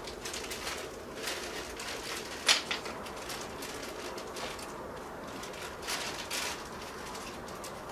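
Thin clear plastic bag crinkling and rustling as it is opened and handled, in repeated short bursts, with one loud sharp crackle about two and a half seconds in.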